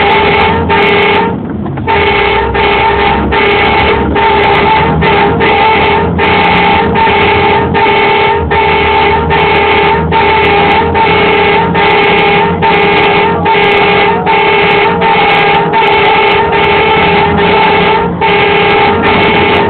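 Tow truck's warning horn sounding in short, steady-pitched blasts, on and off nearly twice a second, to clear a way along the hard shoulder past stopped traffic. The blasts break off once for about half a second near the start.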